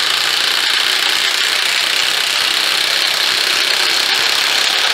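Two cordless high-torque impact wrenches, a Milwaukee M18 Fuel and a Ridgid Octane, hammering at the same time as they drive 7-inch lag bolts into a wooden post: a loud, steady, dense rattle.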